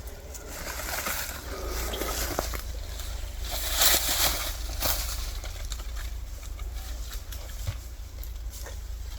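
Footsteps and rustling through leaf litter and brush, irregular crackles and snaps with a louder rustle about four seconds in, over a steady low rumble.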